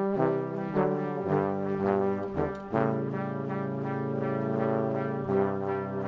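Background music: brass instruments playing held chords that change every second or two.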